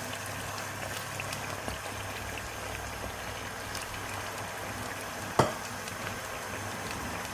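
Diced potatoes frying in hot oil in a pan: a steady sizzle with small crackles, and one sharp knock about five seconds in.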